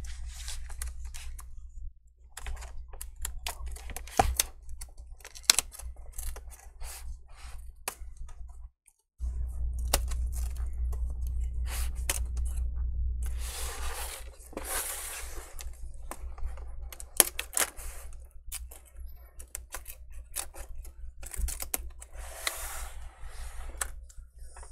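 Laptop screen bezel being pried loose with a metal pry tool: irregular clicks and scrapes of metal on plastic, with a few longer rasping stretches as the double-sided adhesive tape gives way. A low steady hum runs underneath.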